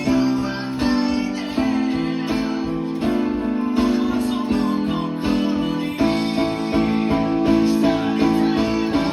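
Rock ballad band music with electric guitar to the fore and a keyboard part played along, chords struck on a steady beat.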